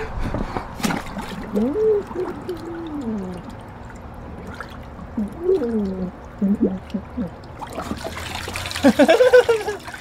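Hot-tub water splashing and trickling as a man holds his face under the surface, his voice muffled and bubbling as he makes a few gliding sounds underwater. The sound grows louder and busier near the end.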